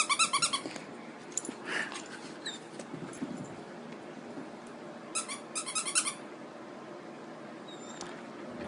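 A squeaky dog toy squeaked rapidly as a small dog bites and chews it: a quick run of squeaks at the start and another about five seconds in.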